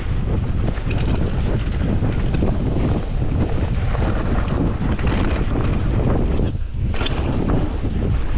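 Wind buffeting the microphone of a mountain bike ridden fast down a trail, with scattered clicks and rattles from the bike. The rush eases briefly about two-thirds of the way through.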